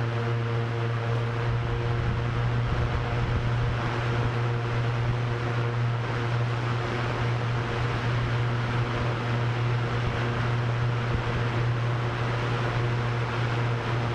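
Drone propellers humming at a steady low pitch, with a few fainter higher tones, over a constant rush of wind.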